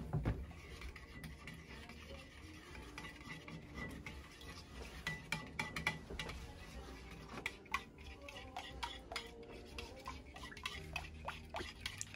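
A metal spoon stirring sauce in a ceramic bowl, clinking and scraping against the sides in light, irregular clicks.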